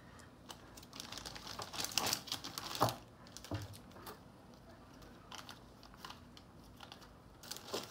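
Plastic zip-lock bags crinkling as they are handled, with light clicks and knocks of small metal fittings and a coiled hose. The handling is busiest in the first three seconds, with one sharper knock near the third second, then only a few scattered ticks.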